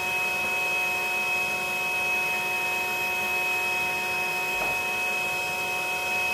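Bee vacuum's motor running steadily, a constant hum with a high whine.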